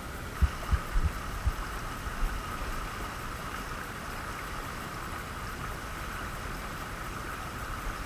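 Steady rush of a fast mountain stream running over stones, with a few dull low thumps in the first second and a half.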